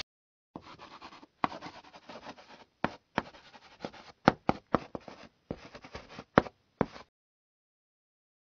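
Pen writing on paper: scratchy strokes broken by sharp little taps. It stops about a second and a half before the end.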